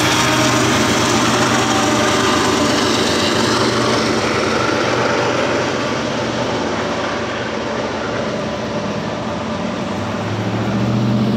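BNSF diesel locomotive at the tail of a freight train passing, its engine and wheel-on-rail noise fading as it moves away. Near the end a pickup truck's engine speeds up as it pulls across the tracks.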